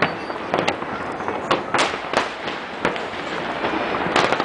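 Aerial fireworks bursting in quick succession with crackling, a rapid cluster of bangs near the end.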